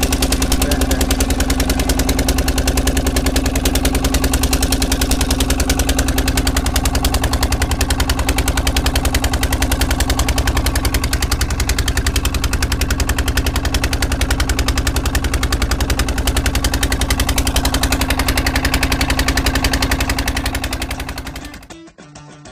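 Inboard engine of a wooden fishing boat running steadily under way, a rapid, even beat of exhaust pulses over a low hum. It fades out near the end.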